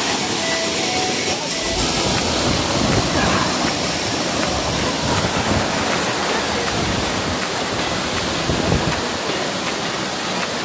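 Waterfall close to the microphone: a loud, steady rush of falling water, with irregular low rumbling joining in about a second and a half in.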